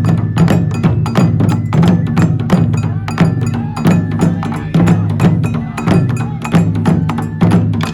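Music with fast, steady percussion strokes, about five or six a second, over a low bass line.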